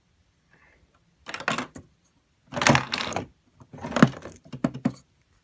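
A LEGO coin-operated vending machine clattering as a one-dollar coin runs through its plastic brick mechanism, with clicks and knocks in three bursts about a second apart.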